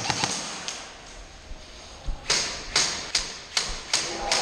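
Footsteps on a hard concrete floor with gear knocking: from about halfway a steady run of sharp knocks with dull thumps, about two or three a second, after a few light clicks at the start.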